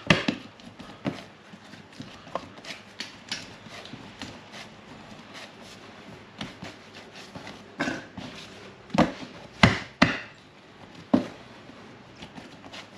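Hands shaping bread dough into loaves on a stainless steel bench: scattered soft slaps and thumps of dough against the metal, with a few louder slaps between about eight and eleven seconds in.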